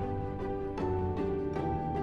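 Background music: slow, soft instrumental with held notes that change about every second.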